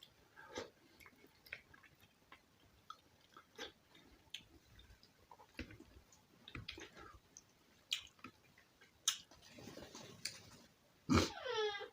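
Close mouth sounds of eating soft rice and mashed bhorta: wet chewing, lip smacks and small clicks scattered through. Near the end a short, loud, high call that falls in pitch cuts in.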